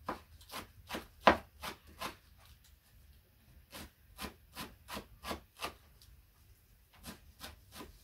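Knife chopping food on a wooden cutting board: a run of separate sharp strokes, about two to three a second, pausing twice, with one louder stroke about a second in.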